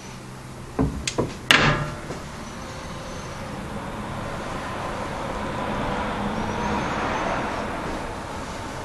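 Three quick knocks, the last loudest with a brief ring, followed by a rushing noise that slowly swells and eases off.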